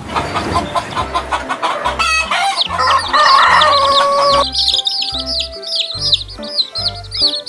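A rooster crows about two seconds in, a held call of about two seconds. Then rapid, high-pitched chirping runs on to the end, over background music with a regular bass beat.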